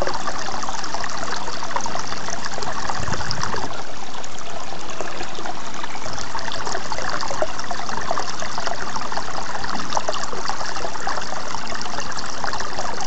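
Thin stream of water pouring from a black hose fitting into a shallow pond, a steady splashing trickle.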